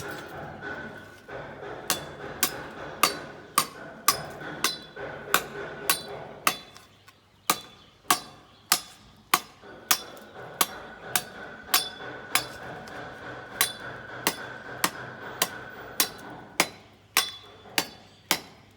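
Repeated hammer strikes, about two a second and fairly even, each a sharp knock with a short ring.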